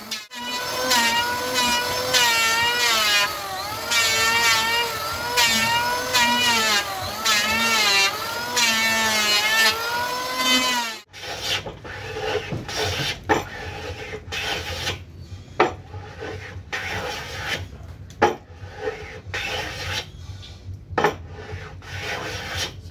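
Electric hand planer running while it shaves a wooden board, its motor whine wavering in pitch as the blade cuts. About eleven seconds in it stops suddenly, and a wooden hand plane is pushed along the edge of a clamped board in repeated strokes.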